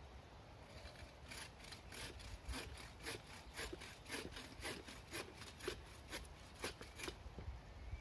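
Bow saw cutting through a thin wooden pole: quick back-and-forth rasping strokes, about four a second, starting about a second in and stopping near the end.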